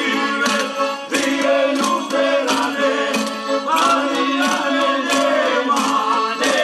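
Men's voices singing a folk song together over a steady low drone, with a wooden barrel drum struck with a mallet about twice a second.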